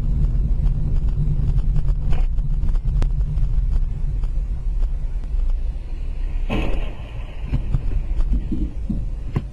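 Low, steady rumble of a car on the move, heard through a dash camera, with a few faint clicks and a short burst of noise about six and a half seconds in.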